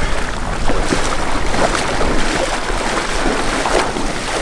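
Splashing in shallow floodwater: a run of short, irregular splashes over a steady noisy background.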